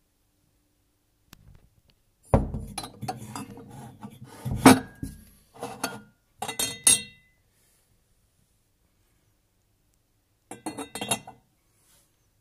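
Glazed ceramic teacups, saucers and teapot clinking against each other as they are handled, in two spells of knocks and clinks with short ringing notes, the second spell near the end.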